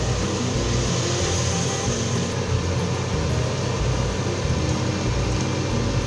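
Cooking broth poured in a steady stream from an aluminium pot into a large aluminium pot of diced offal, splashing as the pot fills, over a steady low hum.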